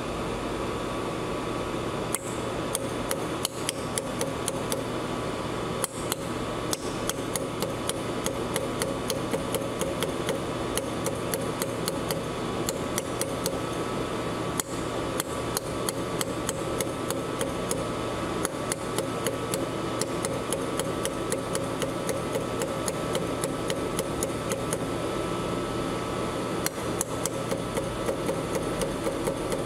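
Dado mini pulsed laser welder firing along the seam between two chrome stainless steel plates: a rapid series of sharp ticks, a few a second, each tick one laser pulse, starting about two seconds in. Under the ticks is the machine's steady hum.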